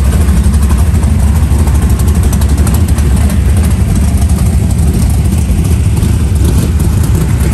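Dirt modified race car's V8 engine idling loudly and steadily, with a low, even sound that does not change.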